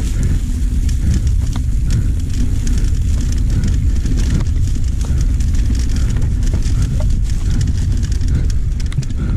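Mountain bike riding fast down a dirt singletrack: a steady, heavy low rumble of knobby tyres and wind buffeting the camera's microphone, with frequent clicks and rattles from the bike over bumps.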